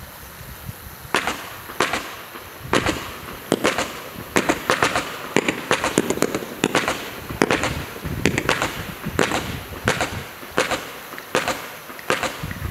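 Low-noise 170-shot firework barrage cake firing: a rapid series of sharp pops and small bursts, one to several a second, starting about a second in.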